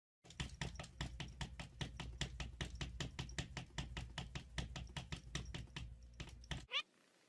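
Rapid, evenly spaced tapping or clicking, about five strikes a second, over a low hum; it stops near the end, followed by a brief high squeak that sweeps in pitch.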